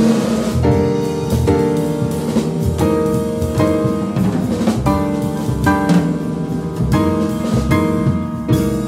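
Jazz trio playing live: upright piano, upright double bass and a DW drum kit with ride cymbals, swinging together. It closes on a final accented chord near the end.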